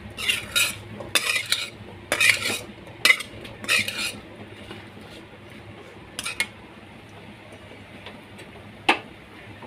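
A metal spoon stirring and scraping thick black chickpea masala around a kadhai: a quick run of scraping strokes through the first four seconds, then quieter, with two lone scrapes later on.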